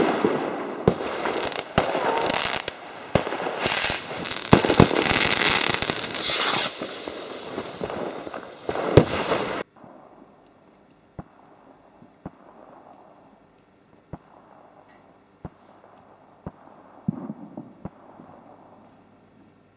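Fireworks going off: a dense crackling hiss with many sharp bangs, which cuts off suddenly about ten seconds in. After that only faint, scattered clicks remain.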